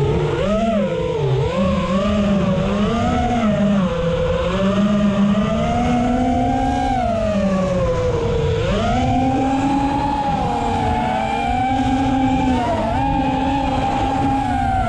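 Five-inch FPV quadcopter's four brushless motors (AOKFLY RV2205, 2500KV) spinning three-blade 5-inch props, a whine that rises and falls constantly with the throttle, with a sharp drop in pitch about eight seconds in.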